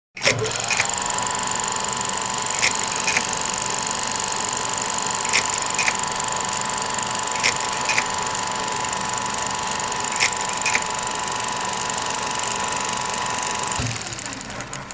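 Film projector sound effect: a motor whine glides up in pitch over the first second and then holds steady under a hiss, with a pair of clicks about every two and a half seconds. Near the end the whine cuts off with a dull thump and the sound fades away.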